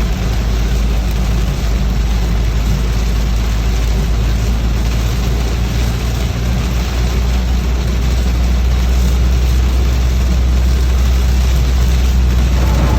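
Steady noise inside a car driving in heavy rain: an even hiss of rain and wet tyres over a deep, constant engine and road rumble.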